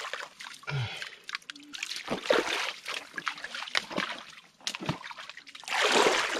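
Shallow creek water splashing and sloshing as hands scoop and pack mud into a stick dam, with irregular wading steps through the water. The loudest splash comes near the end, as a ball of mud is dipped in the water.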